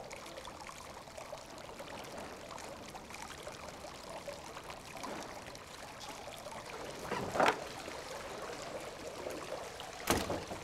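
Courtyard fountain water trickling and splashing steadily into its basin, with a brief louder sound about seven seconds in and a sharp click near the end.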